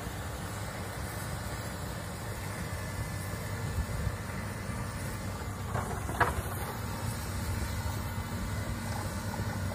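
Komatsu hydraulic excavator's diesel engine running steadily as the machine travels on its tracks. Two short sharp knocks a little past halfway.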